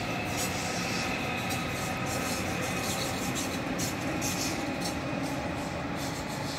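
ICE high-speed train rolling past on the station track: a steady rolling rumble of wheels on rail with a thin, steady high whine and irregular clicks as the cars go over the rail joints.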